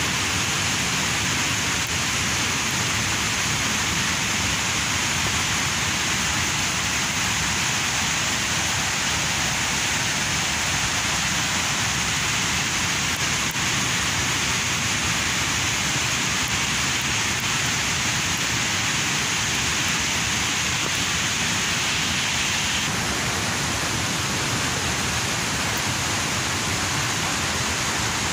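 Steady, unbroken hiss of rushing water, even in level throughout, its higher part easing slightly about 23 seconds in.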